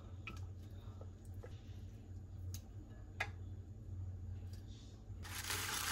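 Light kitchen clatter: a few scattered sharp clicks and taps over a steady low hum, with a short burst of hiss near the end.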